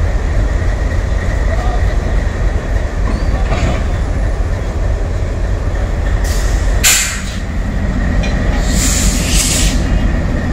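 Twin ALCo WDM-3A diesel locomotives running under load as they haul a train away, a heavy steady engine rumble, with a few short hissing bursts about two-thirds of the way through.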